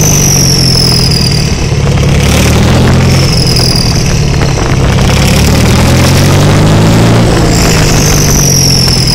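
Case 1394 tractor's turbocharged diesel running loud through a straight-pipe exhaust as it is revved up and down, with a high turbo whistle that falls in pitch three times, once near the start, once around the middle and once near the end.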